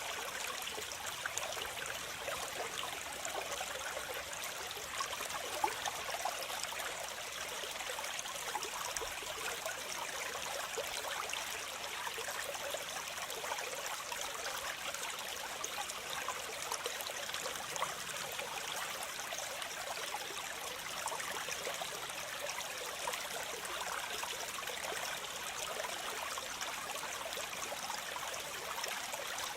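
Water of a tropical waterfall cascading and splashing in a steady rush, with small spattering flickers through it.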